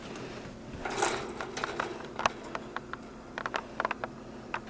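Scattered light clicks and taps, with a short rustle about a second in.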